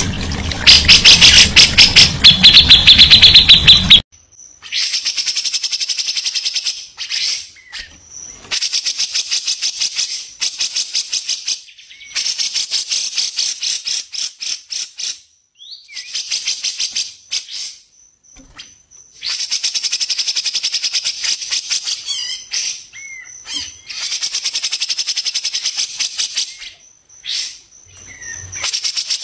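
Songbird song: a loud, dense run of notes for the first four seconds, then repeated bursts of rapid, evenly spaced high notes, each lasting two to three seconds with short pauses between.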